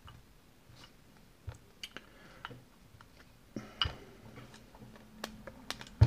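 Scattered small clicks and taps from the parts of a Burg Wächter Alpha Titan 900 padlock as it is handled during disassembly. A few knocks come together about four seconds in, and a sharper, louder knock comes at the very end.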